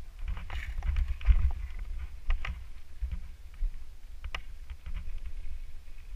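Mountain bike rolling along a dirt trail: a low rumble of wind and ride vibration on the camera, with irregular clicks and rattles from the bike and the gravel, the loudest jolt about a second in.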